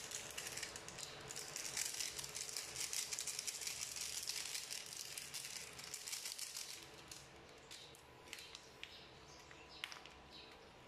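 Dense crackling from chicken pieces frying in a pan while a seasoning sachet is shaken over them. About seven seconds in it dies down to a few scattered crinkles and clicks as a plastic seasoning packet is torn open with the teeth.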